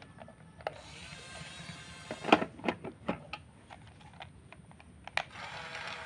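Small electric motors of an RC excavator whining as they drive, with a run of sharp clicks and knocks, the loudest about two seconds in and another near five seconds.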